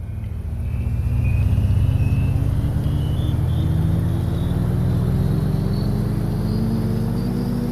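Road vehicle accelerating steadily, its engine note and a thinner high whine both rising slowly in pitch.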